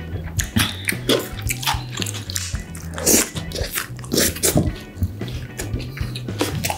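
Close-miked wet chewing and lip smacking of a soft, mayonnaise-filled Korean salad bread roll, with many short clicks and squishes, over background music with a steady low bass line.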